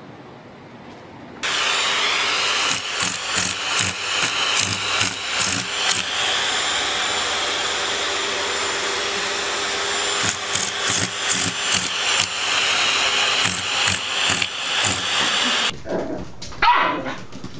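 Vacuum cleaner running steadily, with a cat clinging to its hose, for most of the stretch. It stops abruptly near the end, and a puppy gives a brief high cry.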